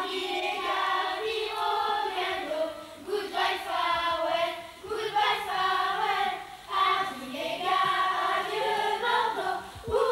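A group of children singing a song together as a choir.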